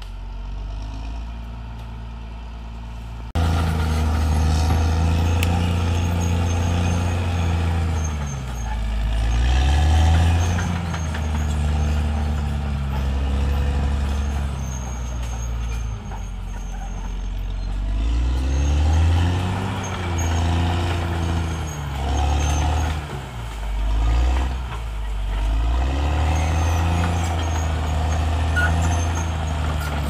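Caterpillar D6R XL bulldozer's diesel engine working as the machine clears brush, its pitch rising and falling several times as it revs up and down. It gets clearly louder about three seconds in.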